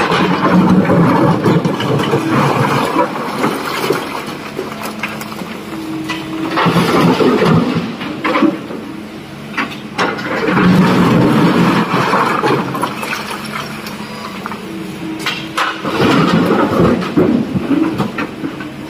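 Large Sany hydraulic excavator's diesel engine working under load, swelling in loudness about every four to five seconds as it digs and swings, with rock knocking and scraping against the steel bucket.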